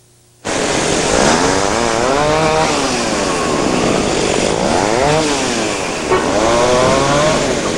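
Loud howling roar of wind that starts suddenly about half a second in, a steady rush with several whistling tones that rise and fall every second or two.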